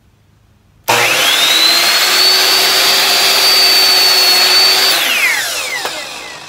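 Ryobi 10-inch sliding compound miter saw starting up about a second in, its motor whine rising quickly to a steady high pitch as the blade is brought down through a wooden board. Near the end the trigger is released and the blade winds down with a falling whine.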